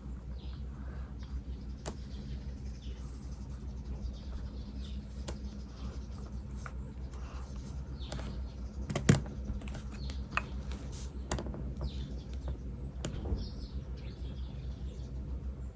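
Pen writing on paper, scratching with scattered light taps and clicks; the loudest is a sharp tap about nine seconds in. Faint bird chirps and a steady low hum lie underneath.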